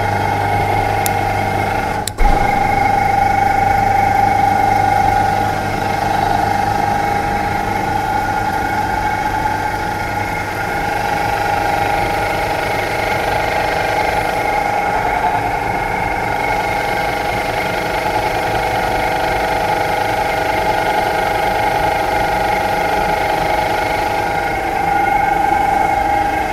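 Two-post vehicle lift running steadily as it lowers a recovery truck body onto a van chassis: a constant whine with a low hum, broken by a brief click about two seconds in.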